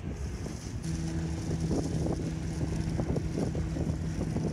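Wind buffeting the microphone on an open boat, with a steady low motor hum coming in about a second in.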